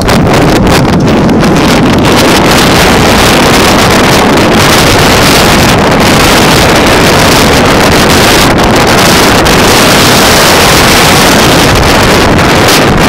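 Heavy wind buffeting the microphone: a loud, steady rumbling rush that drowns out everything else.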